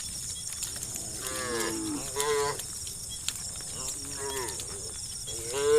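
A herd of cattle mooing: about four moos from different animals, one after another, the last one the loudest.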